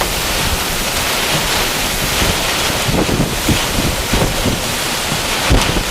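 Severe thunderstorm wind blowing hard across the microphone: a loud, steady hiss with irregular low buffets from the gusts.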